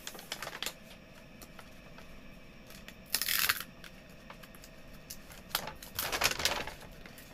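Toy packaging being peeled and torn open by hand: light clicks and crinkles of paper and cardboard, with two louder tearing rustles, a short one about three seconds in and a longer one about six seconds in.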